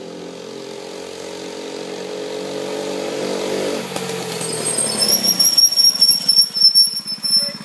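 Small gas-powered mini bike engine approaching, its note growing steadily louder, then dropping in pitch as the bike comes close. Over the last few seconds a high-pitched squeal sounds along with it.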